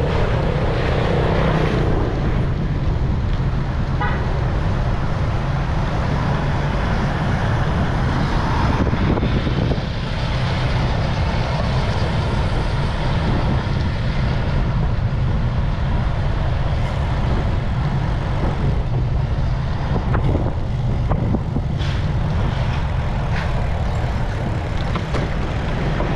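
Steady rush of wind on the microphone and road noise while riding a bicycle, with motor traffic noise.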